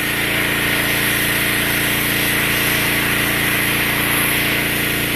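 Generator engine running steadily and loudly, with a constant hiss of high-pressure water spray over it.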